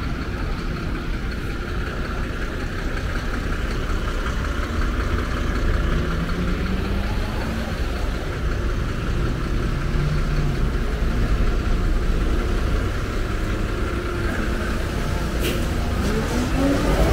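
City street traffic: vehicle engines idling and pulling away over a steady low rumble, with an engine rising in pitch as it accelerates about a third of the way in and another near the end.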